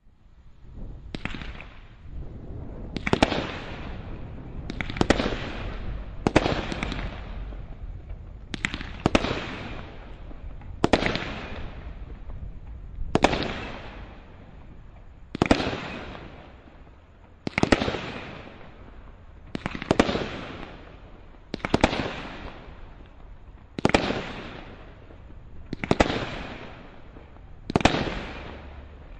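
Brothers Pyrotechnics 'The Judge' Cat 3 combination roman candle barrage firing about fourteen shots, roughly one every two seconds. Each shot is a sharp report followed by a fading hiss.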